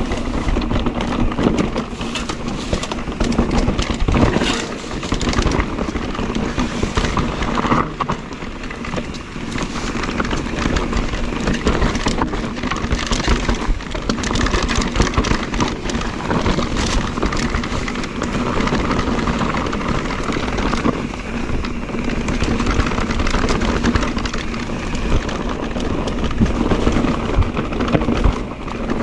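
Mondraker Crafty electric mountain bike ridden down a rough trail: tyres rolling over rock and gravel with a constant clatter of knocks and rattles from the bike. A faint steady hum comes and goes underneath, with wind rushing on the microphone.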